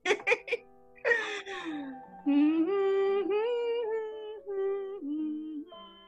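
A woman's voice finishes a word, then hums a slow tune in long held notes that step up and down.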